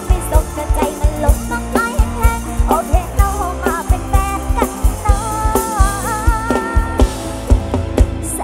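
A woman singing live into a microphone with a band behind her: her voice over a drum kit keeping a steady beat and a bass line, all through the stage sound system.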